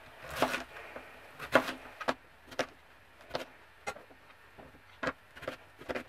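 A chef's knife chopping peeled sweet potato into cubes on a plastic cutting board: a series of sharp, uneven knocks as the blade cuts through and strikes the board, roughly one a second.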